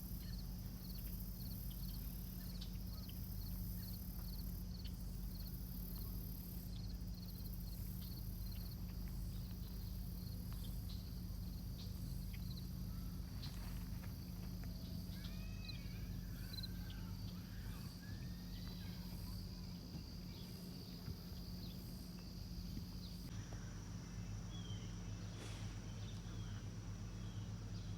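Outdoor ambience: insects trilling in a fast pulsing rhythm, with a few bird chirps near the middle, over a steady low hum.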